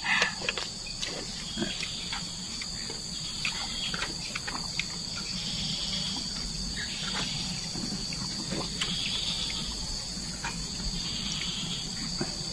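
Steady high-pitched insect drone, with swells every second or two, and scattered small clicks and taps over it.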